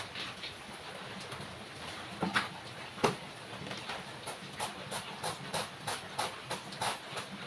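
Banana tree trunk being cut into slices: a quick, irregular run of crisp cuts and snaps, coming faster in the second half, with the loudest knock about three seconds in.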